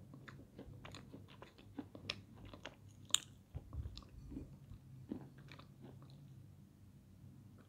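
Close-up mouth sounds of someone chewing dry edible clay (peschanka): many short, crisp crunches, thick for the first five seconds and then thinning out. A faint steady low hum runs underneath.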